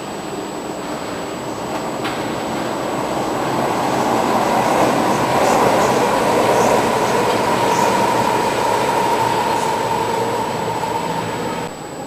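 SMRT MRT train running past on an elevated viaduct: the rumble of its wheels on the rails builds to a peak about halfway through, with a steady whine over it. It drops off abruptly just before the end.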